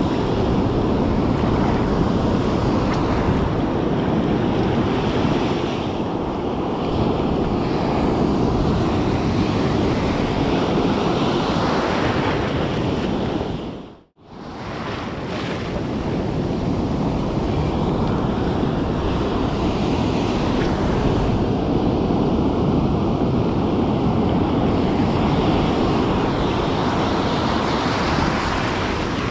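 Ocean surf breaking on a beach, with wind buffeting the microphone: a steady rushing noise that drops out for a moment about halfway through and fades back in.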